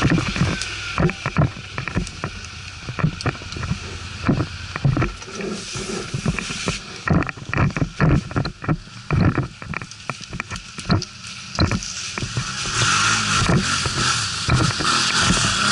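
ATV riding with its engine running and revving near the start and again near the end. Irregular knocks and clatter fill the middle.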